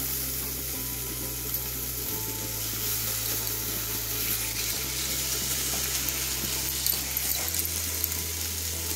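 Ground raw mango paste frying in hot oil in a nonstick kadai, making a steady sizzling hiss as it is stirred and spread with a wooden spatula, with a few small crackles near the end.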